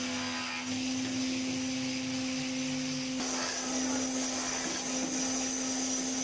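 Scroll saw running with a steady motor hum, its fine reciprocating blade cutting through plywood. The cutting noise gets louder and rougher about three seconds in.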